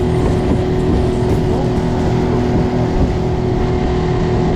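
Outboard motor running steadily at speed, its drone mixed with the rush of the wake and spray as the boat's hull cuts through choppy water.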